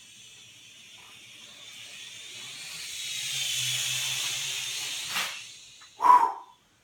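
Small FPV quadcopter's electric motors and propellers whining with a hiss, swelling to a peak about four seconds in and then fading. A sharp click comes a little after five seconds, and a short loud sound follows near the end.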